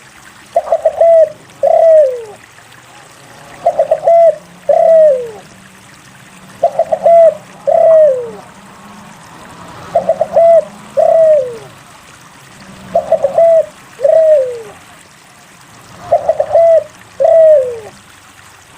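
Spotted dove (derkuku) cooing over and over: every three seconds or so comes a quick triple coo, then one long coo that falls in pitch. It is a lively, vocal (gacor) bird's call, used as a lure to set other doves calling.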